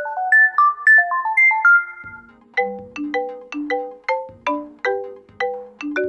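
Wyze doorbell chime unit playing its selectable chime tones: a stepping electronic melody for about two seconds, then after a short break a different tune of short ringing notes, about two and a half a second, as the chime sounds are cycled through.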